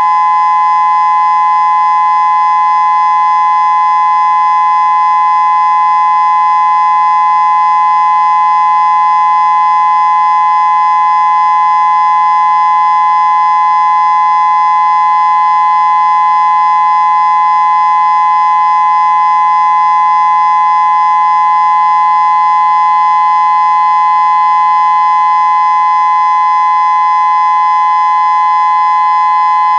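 Federal Signal Modulator electronic outdoor warning siren sounding its steady Alert signal during a siren test. It is one loud, unwavering tone that does not rise or fall.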